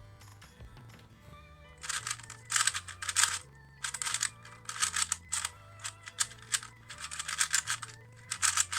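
YuXin Black Kirin 2x2x2 speedcube being turned fast during a timed solve: quick runs of plastic clacking that start about two seconds in, broken by short pauses. Background music with a low, stepping bass line plays under it.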